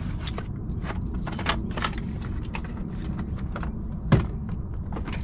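Handling noise from a plastic Milwaukee Packout tool case: a run of light clicks and knocks as a wireless vacuum gauge is set down and the case is worked open, with one sharper knock about four seconds in. A steady low rumble sits under it all.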